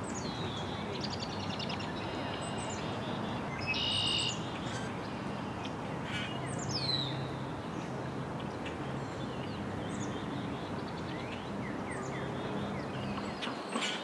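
Wild songbirds calling and singing over a steady low background noise. There are quick sliding notes and a loud buzzy trill about four seconds in.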